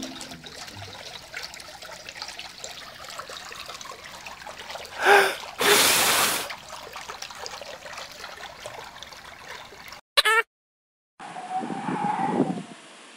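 Water trickling and splashing, overlaid with a string of cartoon sound effects: a loud burst with a sweeping pitch about five seconds in, running into a loud splash-like rush, a brief blip after ten seconds, then a wavering squeaky tone near the end.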